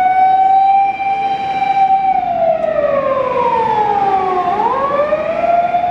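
Fire engine siren wailing: a held high tone that slides slowly down for a couple of seconds, then sweeps quickly back up to the high pitch near the end.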